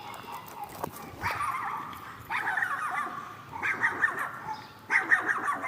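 An animal calling in four bursts of rapid, chattering cries, each under a second long and about a second apart.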